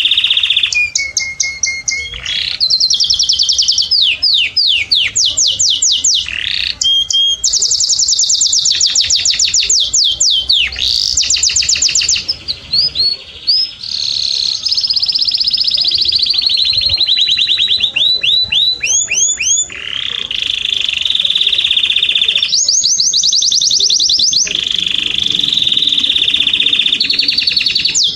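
Domestic canary singing: a long, loud song of rapid trills and fast repeated falling whistles between 2 and 8 kHz, switching from one trill to the next every few seconds.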